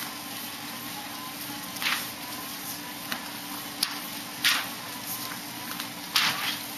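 Sheets of paper rustling as handheld signs are swapped, in three short bursts with a couple of small clicks between, over a steady low hum.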